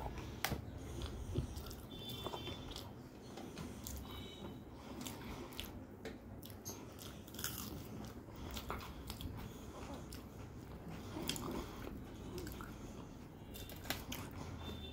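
Close-up eating sounds: crisp crunching bites and wet chewing, as of raw onion and rice eaten by hand, in irregular clicks throughout.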